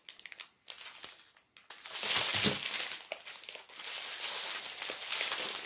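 Thin plastic bags of diamond painting drills crinkling as they are handled. There are a few light rustles at first, then dense, steady crinkling from about two seconds in.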